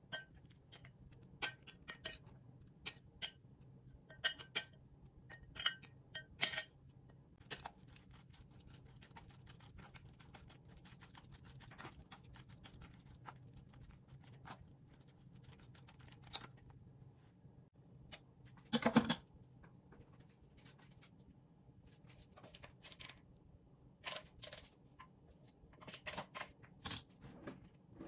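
Metal spoon scraping and clicking against a stainless-steel mesh strainer as it presses grated raw potato to squeeze out the liquid. Scattered short scrapes and clicks, with a louder, longer scrape about nineteen seconds in and a run of clicks near the end.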